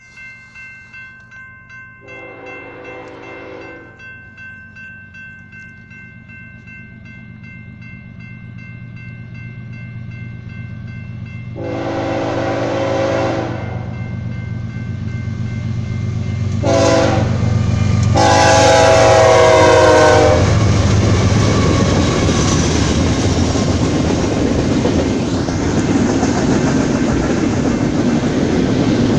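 Grade-crossing bell ringing while a BNSF freight train's diesel locomotive horn sounds the crossing signal: two long blasts, a short one and a final long one, growing louder as the train nears. The locomotives then pass, followed by double-stack intermodal cars rolling by with steady wheel and rail noise.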